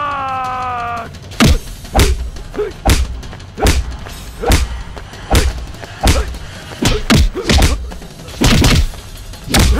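Film fight-scene punch and kick sound effects: about a dozen sharp hits, roughly one every three quarters of a second, over background music. A held tone falls away in the first second, before the hits start.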